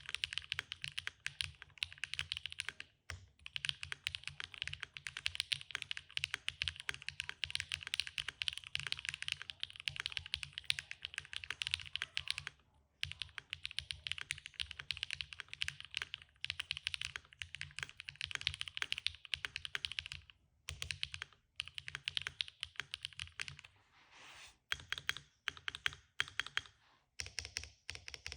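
Fast typing on a QK60 mechanical keyboard with an aluminium plate and no PE foam, fitted with lubed Gateron x SwagKeys Modern Grey linear switches (POM long stems) and GMK keycaps. The keystrokes run in quick continuous runs broken by a few short pauses, and thin out to scattered strokes near the end.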